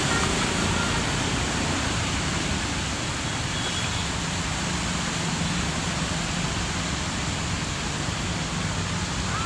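Steady rushing noise of heavy rain and water on a waterlogged road, with a low traffic hum underneath.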